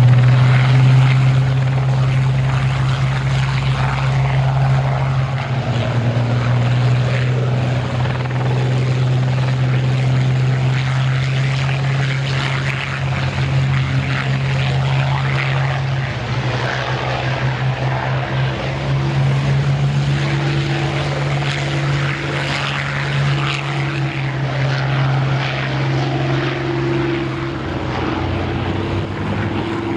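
Piston aero engines of Spitfire and Hurricane fighters running on the ground, a steady low drone that weakens briefly about halfway through.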